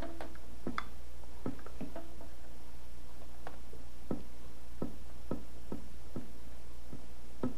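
Faint irregular clicks and ticks of a plastic compression nut being hand-tightened onto the tubing fitting at a water pre-filter's outlet, over a steady low hum.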